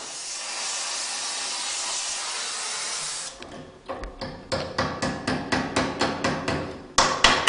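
A steady hiss for about three seconds, then a blacksmith's hand hammer striking a glowing low-carbon steel rose petal on the anvil in quick even blows, about four a second, the last few loudest.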